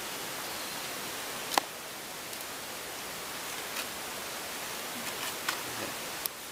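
Steady hiss with a few short, sharp clicks and taps from handling a freshly caught carp and working the hook out of its mouth; the loudest click comes about a second and a half in.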